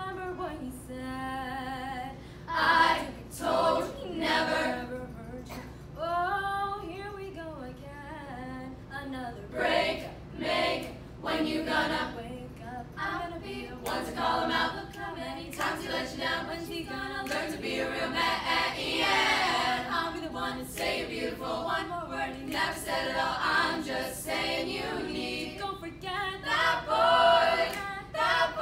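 Treble-voice a cappella group of young women singing in harmony, with vocal percussion clicking out the beat under the voices.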